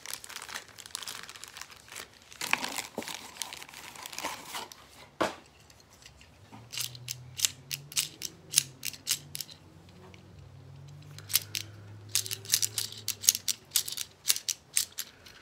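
Plastic wrapping crinkling as a small plastic toy figure is unwrapped, then many sharp plastic clicks in quick clusters from about six seconds in as the figure's joints are snapped and turned to transform it.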